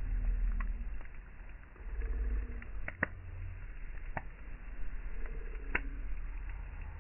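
Wood fire burning, crackling with a few sharp pops, the loudest about three seconds in. Low wind rumble on the microphone runs underneath.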